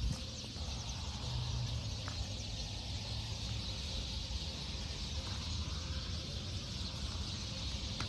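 Birds calling and chirping faintly in the background over a steady low rumble.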